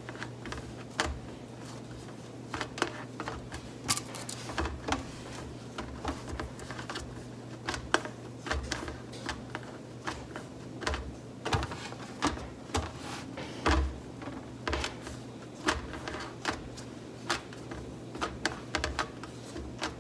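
Hands shaping bread dough on a metal baking tray: irregular light taps and knocks, one or two a second, over a steady low hum.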